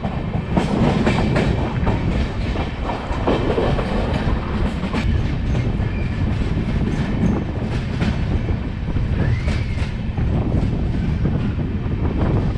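Passenger train of LHB coaches running at speed, heard from an open coach window: a steady rumble of wheels and wind with a quick, irregular clickety-clack of the wheels over rail joints.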